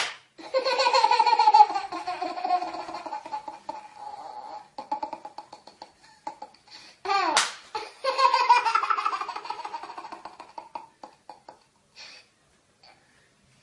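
A baby laughing in two long bouts of rapid, high-pitched giggles, the first starting about half a second in and the second about eight seconds in, with a brief sharp sound between them.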